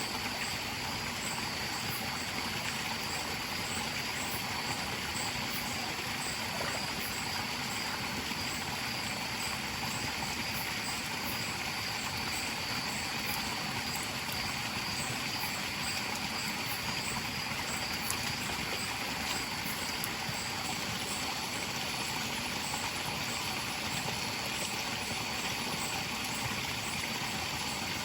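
Steady rush of a forest stream flowing, unchanging throughout, with a faint steady high whine above it.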